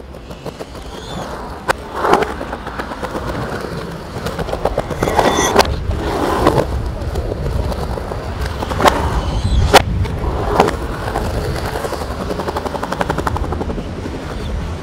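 Skateboard wheels rolling on concrete, with several sharp clacks of the board hitting the ground and a fast run of clicks near the end.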